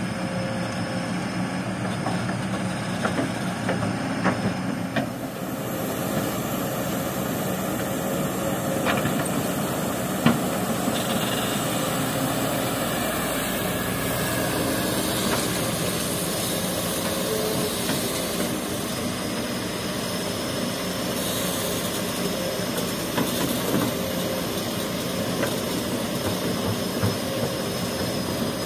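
Kobelco crawler excavator's diesel engine running steadily under hydraulic load while it digs and swings, with a few sharp knocks of stones dropping into a steel dump-truck bed, the loudest about ten seconds in.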